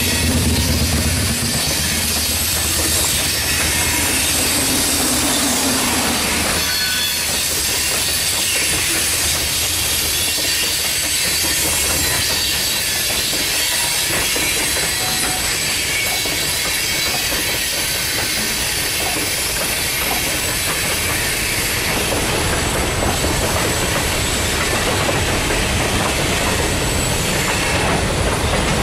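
Freight cars of a long, heavy train rolling past: a steady rumble and rattle of steel wheels on rail, with clickety-clack over the rail joints and a thin wheel squeal. A low hum fades out about six seconds in.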